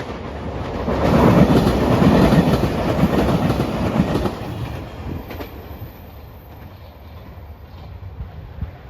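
A train passing close by, its wheels rumbling on the rails. It builds to its loudest within the first second or so and stays loud for a few seconds, then dies away about halfway through.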